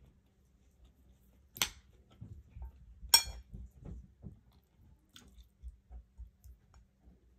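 A person chewing a mouthful of food close to the microphone, with soft, rhythmic chewing sounds. Two sharp clicks come about a second and a half in and about three seconds in, the second the loudest.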